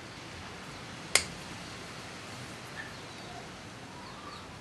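A single sharp snip of hand cutters closing through the outer sheath of electrical flex, about a second in.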